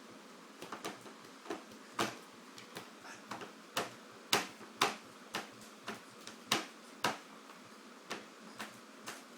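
An irregular series of short, sharp clicks, about three a second, some louder than others.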